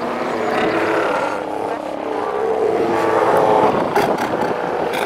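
Northern fur seal breeding colony: many seals calling over one another in a steady din of overlapping bawls and bleats, loudest about three to four seconds in.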